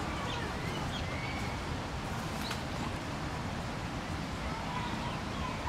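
Steady low background rumble of an outdoor enclosure, with faint short high-pitched calls scattered through it and a single light tick about two and a half seconds in.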